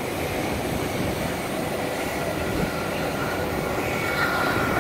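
Jet airliner engines running, a steady rumble with a thin high whine that grows a little stronger near the end.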